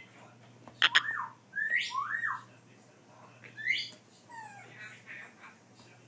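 Baby African grey parrot giving short whistled calls, about four in all, each sweeping up and down in pitch, with a sharp click about a second in.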